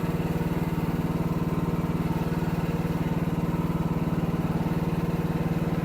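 Kymron mini excavator's 14 horsepower Briggs & Stratton engine running steadily, with an even, rapid firing pulse.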